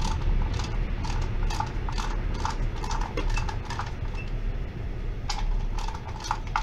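Sharp metallic clicks and clinks of hand tools working on a motorcycle engine, about two a second for the first three seconds, then a pause and a few more near the end.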